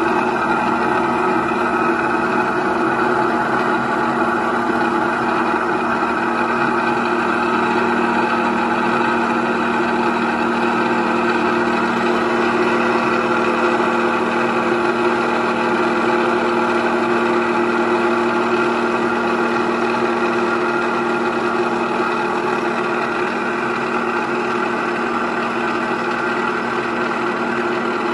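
A grinding wheel grinds down the hardfaced weld flight of an oil expeller worm under a coolant jet. It gives a loud, steady whine and hiss that does not change.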